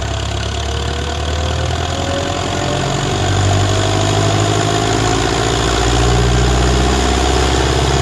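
Ursus C-360 tractor's four-cylinder diesel engine running hard while the tractor drives a roller dynamometer, growing louder about three seconds in and again near six seconds as the revs climb. A faint whine rises in pitch over the first few seconds.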